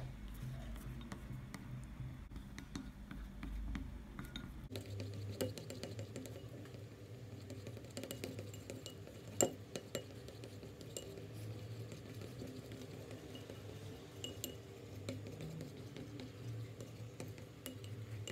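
Wooden stick stirring runny glitter glue and water in a ceramic bowl, tapping and scraping against the bowl's sides with light clinks, one sharper knock about nine seconds in. A low steady hum runs underneath.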